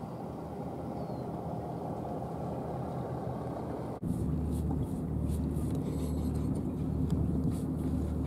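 A steady low rumble, then from about four seconds in a louder engine idling with a steady hum and a few light clicks.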